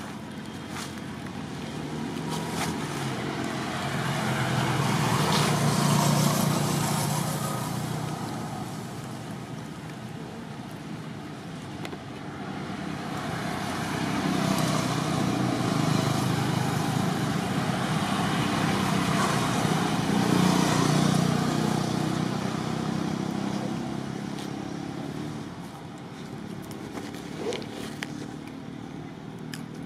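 Motor vehicles passing by: engine noise swells to a peak about six seconds in and fades away, then a second, longer pass builds from about twelve seconds in and dies down a few seconds before the end.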